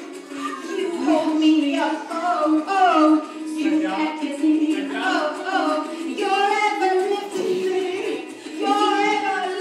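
A girl singing a song, holding long notes that bend up and down in pitch.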